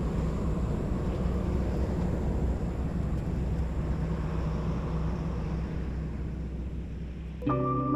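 A motor vehicle's engine running steadily as a low rumble, slowly growing fainter over the last few seconds as it moves off. Near the end, music comes in with held notes.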